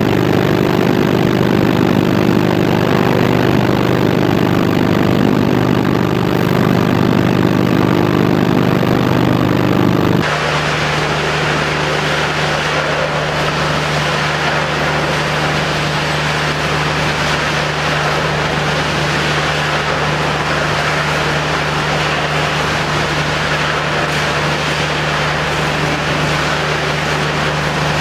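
Scrap recycling plant machinery running: a steady, loud industrial hum with several steady tones. About ten seconds in the sound changes abruptly to a different steady hum as the view moves from the crusher to the conveyor belts and separator.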